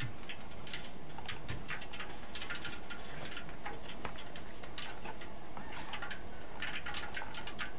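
Woks heating on a gas stove, with used frying oil in one and vegetable soup water coming up to the boil in the other, giving off a steady run of light, irregular crackles and ticks over a low hiss.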